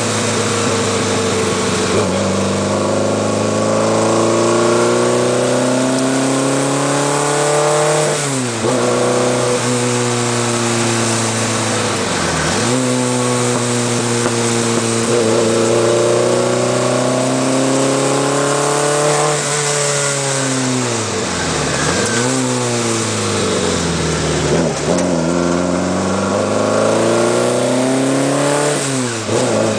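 Alfa Romeo TZ's twin-cam four-cylinder engine being driven hard, its note climbing steadily and then falling sharply about five times as the gears are changed.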